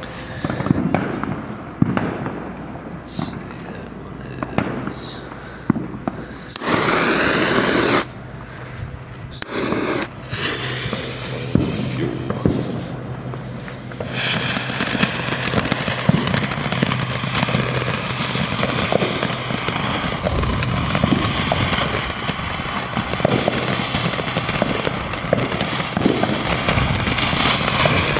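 Footsteps and a couple of short hissing bursts, then about halfway through a consumer firework fountain lights and sprays sparks with a steady hiss and crackling.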